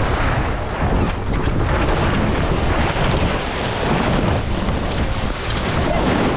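Strong wind buffeting the microphone, rising and falling in gusts, over the rush of water along a J/70 sailboat's hull as it sails fast and heeled.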